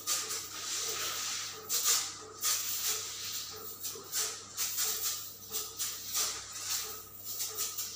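Pesticide sprayer hissing in short, irregular bursts over a steady low hum.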